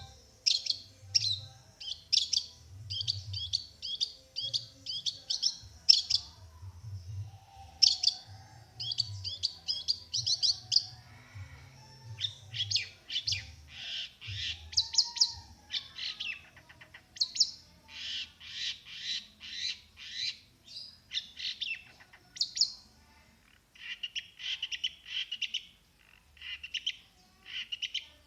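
Long-tailed shrike (cendet) singing: fast runs of short, sharp chattering notes in bursts of a few seconds, the phrases changing as it goes and dropping lower in pitch near the end.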